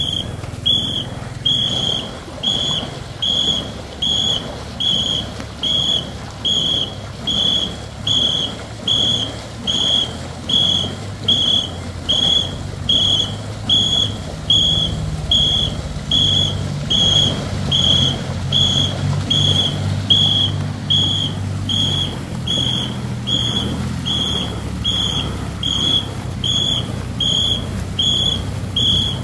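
Stroke whistle blown in short, even, high-pitched blasts, about three every two seconds, setting the paddling rhythm for a ghe ngo longboat crew. A low rumble runs underneath.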